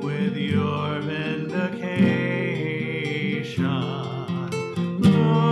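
A hymn sung by a wavering solo voice over strummed acoustic guitar chords.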